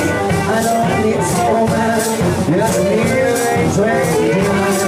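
Live blues band playing: a harmonica cupped to a handheld microphone wails over acoustic guitar and a drum kit keeping a steady cymbal beat.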